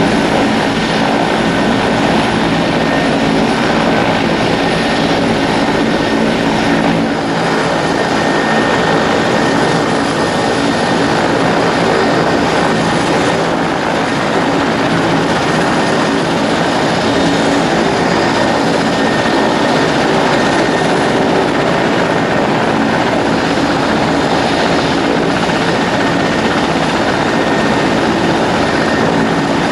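Mil Mi-8MTV-1 helicopter running steadily on the ground, its twin turboshaft engines and turning main rotor making a loud, even mix of engine tones and rotor beat.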